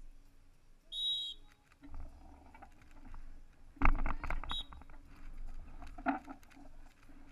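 Referee's whistle blown once, briefly, about a second in, then a loud cluster of knocks and rattling about four seconds in, with a second very short whistle just after it.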